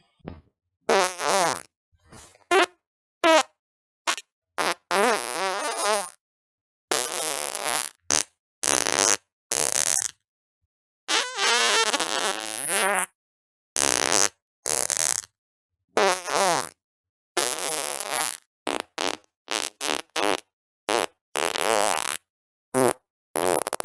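A string of about twenty farts, one after another with brief silences between. They range from short pops to long drawn-out ones of up to about two seconds, with a wavering, buzzy pitch.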